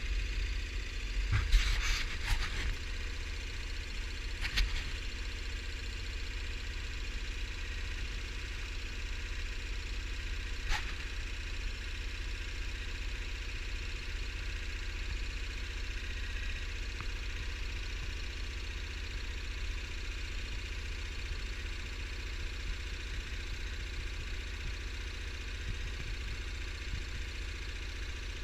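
ATV engine running steadily at a low, even pace, with a few sharp knocks or clicks in the first few seconds and one more about eleven seconds in.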